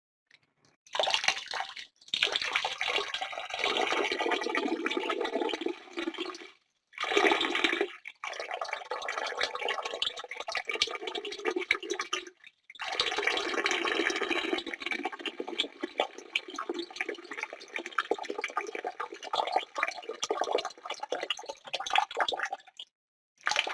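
A stream of urine splashing into the water of a toilet bowl, in several spurts with short breaks, then running steadily and ending in a brief last squirt.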